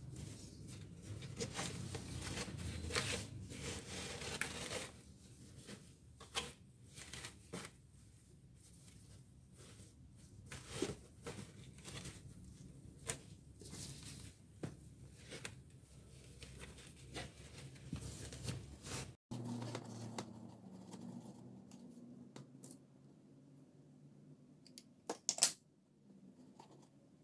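Burlap sack rustling and scraping as hands pull and fold it over a plastic basket, with scattered light clicks and knocks. It goes quieter after a short break about two-thirds in, and a couple of sharp clicks come near the end.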